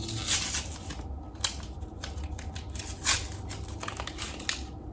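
Makeup packaging being opened by hand: a few short, sharp crinkling and scraping strokes with small clicks, spread across several seconds.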